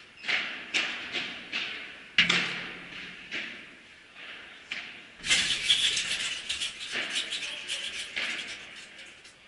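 Padel rally: sharp, echoing pops of the ball off rackets and bounces, in quick succession, the loudest about two seconds in. A denser stretch of clattering noise follows for about three seconds from around five seconds in.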